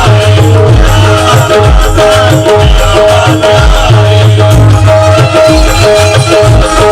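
Loud song accompaniment with a steady driving beat: heavy bass drum pulses and shaken percussion under long held melody notes.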